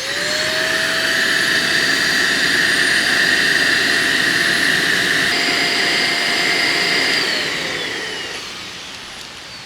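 Small electric air pump motor spinning up, running steadily with a whirring whine and a rush of air, then winding down and stopping near the end.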